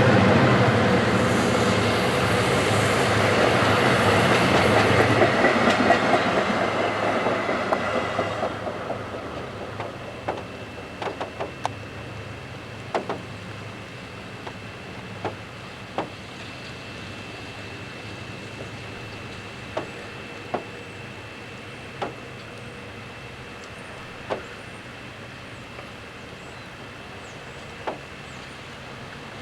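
A train passing close by on the railroad main line, loud at first and fading away by about nine seconds in. After it come a steady hiss and a dozen or so sharp, scattered clicks.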